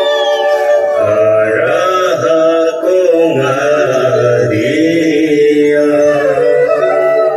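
Music: steady held tones, joined about a second in by low chanting voices that sing a slow, wavering melody.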